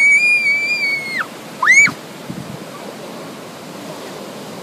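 A young boy's long, high-pitched shout of triumph, held steady, then a short high yelp about a second and a half in; after that, steady ocean surf.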